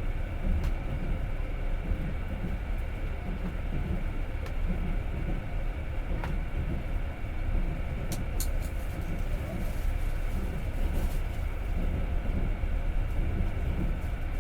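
Passenger train running along the track, heard from inside the carriage: a steady low rumble of wheels on rails, with a couple of faint clicks about halfway through.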